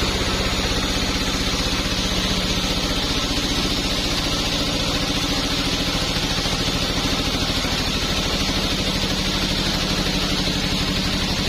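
Sawmill engine running steadily at an even speed, with a fast, regular firing pulse and a hiss over it.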